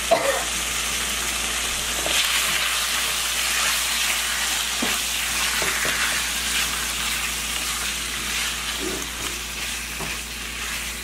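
Chicken breast strips sizzling in oil in a nonstick frying pan, stirred with a silicone spatula, with a few light knocks of the spatula against the pan.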